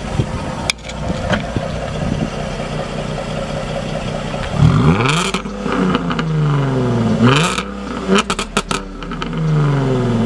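2016 Jaguar F-Type's supercharged 3.0-litre V6 idling with its active exhaust valves open, then blipped three times from about four and a half seconds in. The pitch rises and falls with each rev, and a few sharp exhaust pops come as the revs drop near the end.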